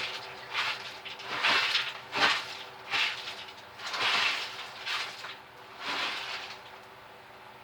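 Electric forge blower running with a steady hum, while about seven short, irregular noisy rushes come and go over it and stop about six and a half seconds in.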